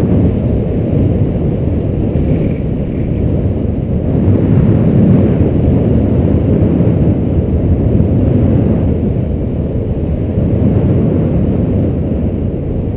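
Wind from the flight airflow buffeting an action camera's microphone, a steady low rumble that swells and eases slightly.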